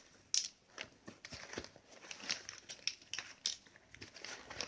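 Pens being handled and taken out of a travel pouch: soft rustling with scattered light clicks and taps.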